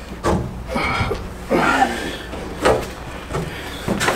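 A large fiberglass front clip being lifted and shifted by hand, giving irregular hollow knocks and bumps every second or so as the panel moves and settles.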